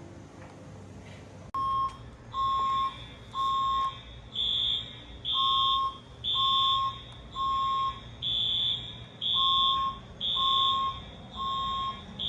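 Fire alarm horns sound, starting about a second and a half in. They give high-pitched half-second beeps about once a second, and a lower tone joins the beeps in groups of three, the temporal-three evacuation pattern.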